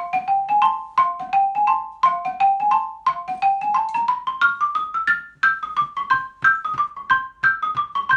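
Xylophone played with mallets, about four notes a second: short climbing figures against a repeated upper note, then a line stepping steadily downward. A syncopated exercise with augmented harmony.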